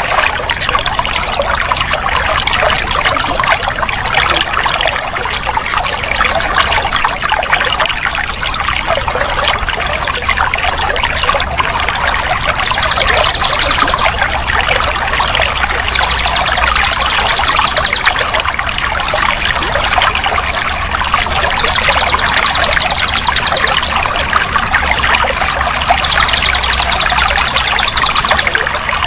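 Water flowing and trickling steadily. A high, fast trill comes in four times for about two seconds each.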